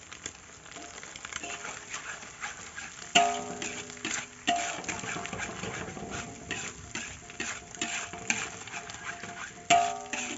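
Metal spatula scraping and stirring a frying spice paste around a large metal wok, with many short scrapes and clinks. Two hard knocks of the spatula, about three seconds in and again near the end, set the wok ringing for a second or so.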